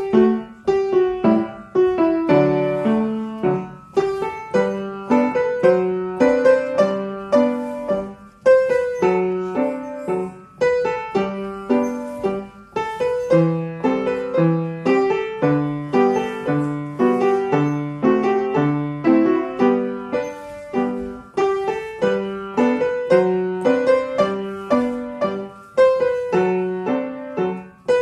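Piano playing a ballet class accompaniment for a barre exercise: a lively tune over regularly struck chords, in an even, dance-like rhythm.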